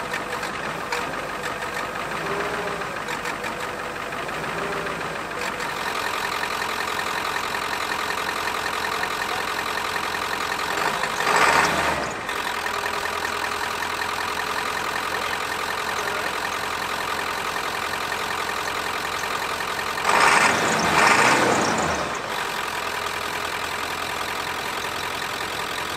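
1995 Ford F-350's 7.3-litre Powerstroke turbo-diesel V8 idling steadily on its first run in years. The sound swells louder twice: briefly about halfway through, and again for about two seconds later on.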